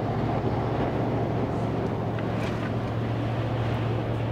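Pickup truck driving at highway speed, heard from inside the cab: steady road and tyre noise with a constant low engine hum.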